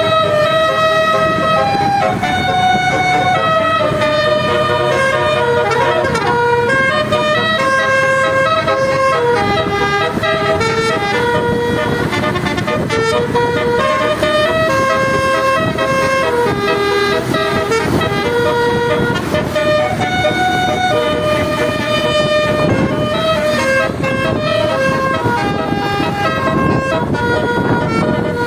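Bus telolet basuri multi-tone horn playing a melody: a run of held notes stepping up and down in pitch, over a steady low rumble.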